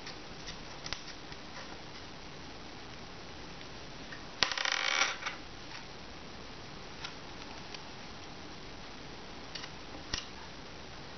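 Faint clicks and taps of small metal jewellery findings being picked up from a table and handled, over a steady hiss. About four and a half seconds in, a louder burst of noise lasting under a second.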